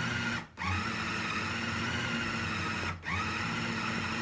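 Electric kitchen blender grinding herbs into a thick, sticky mixture, run in pulses. The motor cuts out about half a second in and again about three seconds in, and each time it spins back up with a rising whine.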